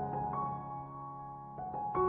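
Slow background music played on a keyboard, with held notes and a new note coming in about a third of a second in and again near the end.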